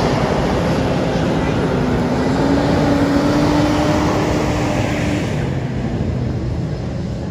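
Jet engines of Blue Angels F/A-18 Super Hornets running loud and steady as the jets taxi. A fuel tanker truck drives past close by, and a steady tone rising slightly in pitch fades out about five seconds in.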